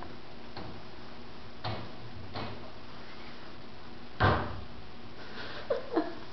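A hamster's plastic exercise ball rolling on a hardwood floor and knocking into things, over a steady background hiss. There are a few knocks: two light ones early, the loudest about four seconds in, and two quick ones near the end.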